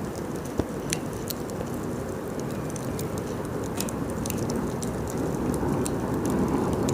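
Wood fire burning: a steady low rush of flames with sharp, irregular pops and crackles from the burning wood, growing a little louder toward the end.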